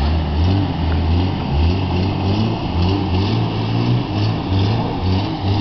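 Jeep Wrangler engine revving and labouring as it drives through a mud pit and climbs out, its note rising and falling with the throttle.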